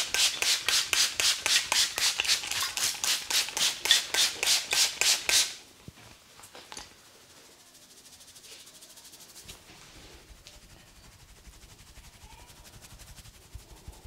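Rapid, evenly paced strikes of a barber's hands during a head massage, about four or five a second, stopping suddenly about five and a half seconds in. Faint rubbing and a few light clicks follow.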